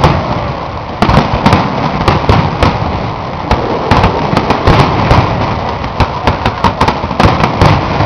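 Aerial fireworks display: a rapid, irregular barrage of shell bursts and crackles, with the bangs coming thickest about a second in, around the middle and near the end.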